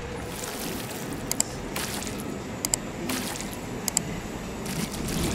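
Sound effects of a subscribe-button animation: soft whooshes and three quick double mouse clicks, over a steady low background hum.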